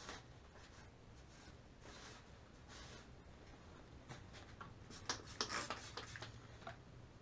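Cloth rag rubbing and wiping over greasy engine-bay parts in soft swishes, then a quick run of short, sharp squirts from a hand trigger spray bottle about five seconds in, the loudest sounds here.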